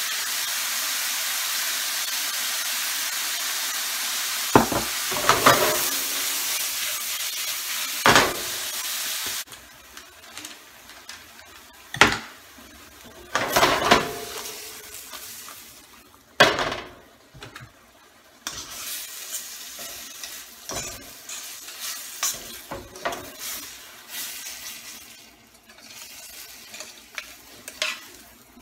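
Sliced pheasant back mushrooms sizzling loudly in a stainless steel sauté pan over a gas burner. The sizzle drops suddenly after about nine seconds. Then come several metallic clanks as the pan is shaken, followed by quieter sizzling with small clicks of stirring.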